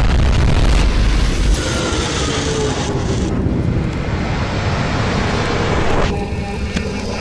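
Battle sound effects from an animation played backwards: heavy explosion rumble and noise that cut off abruptly about a second and a half in, then dense blast and weapon noise with faint gliding tones, changing sharply again about six seconds in.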